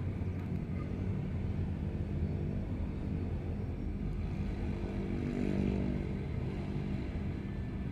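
Steady low engine drone that swells a little around five to six seconds in.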